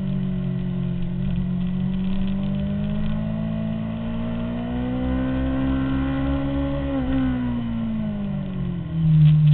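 Honda CBR600RR's inline-four engine at speed, heard from a camera mounted on the bike: its pitch climbs steadily for several seconds, falls away about seven seconds in, and comes back louder near the end.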